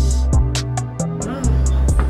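Background music with a steady beat: short sharp percussion strikes over held deep bass notes.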